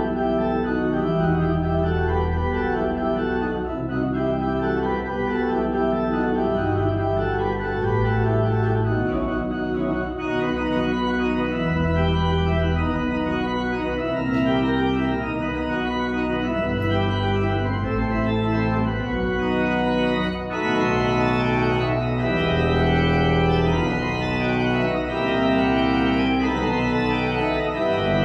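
Church pipe organ playing slow, sustained chords over deep bass notes that change every second or two.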